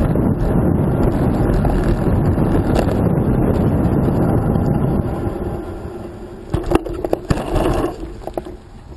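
Wind buffeting the microphone of a camera on a moving bicycle, easing off about five seconds in as the bike slows. A few sharp knocks and a brief steady hum follow.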